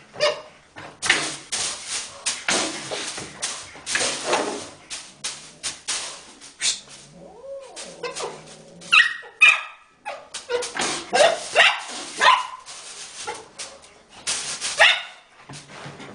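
American cocker spaniel barking and yapping in many short, rapid bursts.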